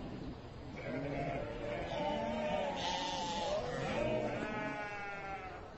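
Sheep bleating: several overlapping wavering bleats, with one long quavering bleat about four seconds in.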